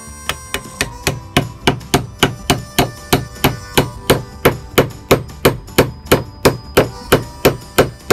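Steady, rhythmic hammer blows, about three a second, each a sharp wooden knock: beechwood wedges being driven into a split in a wooden axe-throwing target.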